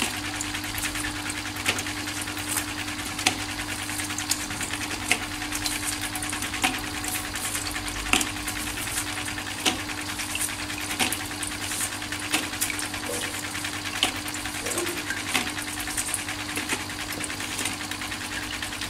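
Small water pump in an aeroponic propagator bucket running with a steady hum while its rotating spray head hisses water against the inside of the lid. Plastic net pots click into the lid's holes about every second and a half.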